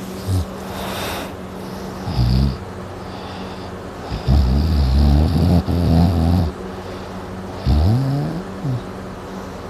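Loud snoring like a buzz saw: about five or six deep, rough snores at uneven intervals, the longest in the middle. One near the end bends up and down in pitch. A faint steady hum runs underneath.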